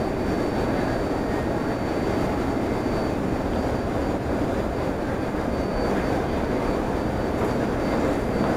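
Steady running rumble of a vehicle in motion, with a faint steady high-pitched whine.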